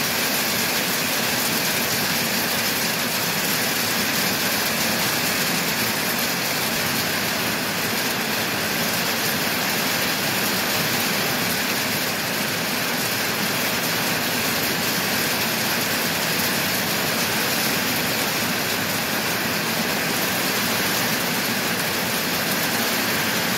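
Heavy rain pouring down on trees and foliage, a dense, steady hiss that holds level throughout.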